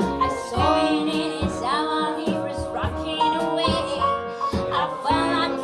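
A woman singing live with a small band: piano, double bass and drums play under her voice, with a steady beat.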